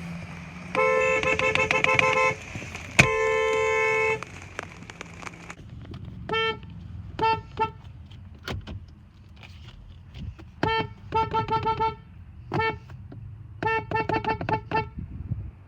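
Kia car horns honking: two long blasts of a two-note horn, then a different horn giving short toots and quick strings of rapid beeps.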